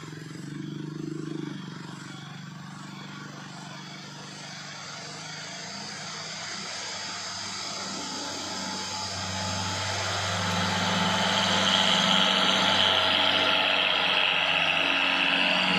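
A diesel cargo truck's engine running steadily as the truck approaches, getting steadily louder through the second half. A scooter goes by before the truck.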